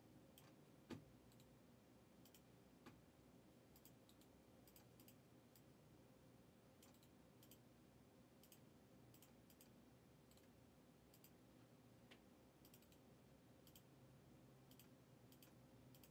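Near silence with faint, scattered clicks of a computer mouse and keyboard, a slightly louder click about a second in.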